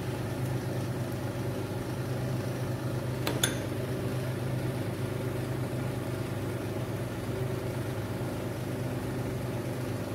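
A steady low mechanical hum, like a small motor running, with one light click about three and a half seconds in.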